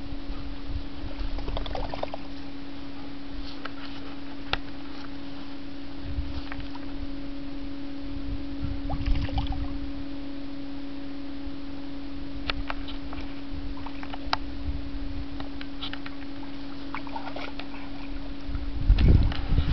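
Water splashing and sloshing in a plastic paddling pool as a Bernese mountain dog paws and noses at the bottom, in short irregular bouts with the loudest splashing near the end. A steady low hum runs underneath.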